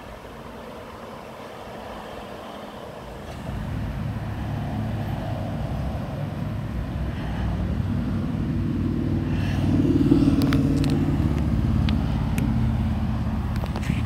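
A motor vehicle's engine running low and rumbling, growing louder to a peak about ten seconds in and then easing off a little, with a few light clicks near the end.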